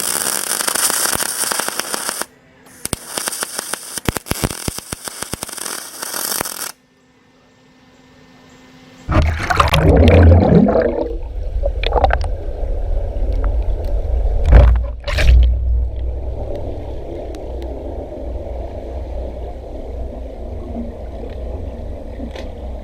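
Welding arc on aluminum, crackling and hissing for about seven seconds with a short break about two seconds in. After a short lull comes water churning and bubbling over a strong low rumble, as from a camera moving underwater, with a few sharp knocks.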